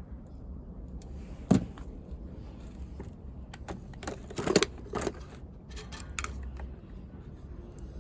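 Small hand-work noises from repairing a hair dryer cord: scattered sharp clicks and knocks of tools and wire being handled, the loudest about a second and a half in and again around four and a half seconds, over a low steady hum.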